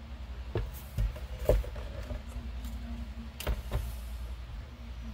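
Scattered sharp clicks and taps of small plastic model parts and wiring being handled, the loudest about a second and a half in and again near the middle, over a steady low hum.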